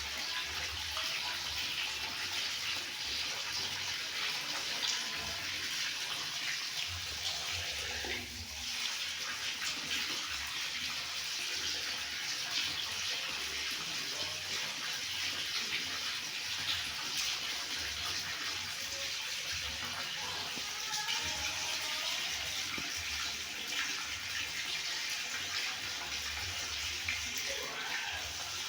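Water running steadily from a tap, a continuous hissing splash that barely changes.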